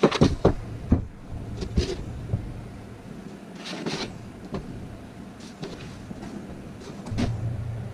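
Offcut sheets of MDF knocking and scraping against each other and the board rack as they are pulled out by hand: a quick run of sharp knocks at the start, a scrape about four seconds in, and a few lighter knocks after.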